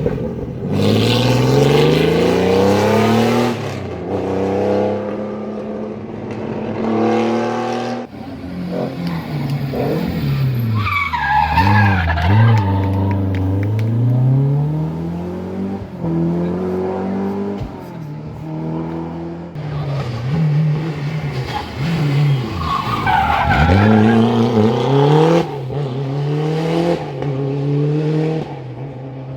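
Historic rally cars at race pace, engines revving hard. The pitch climbs through the gears, dives under braking and climbs again, over a few separate runs one after another.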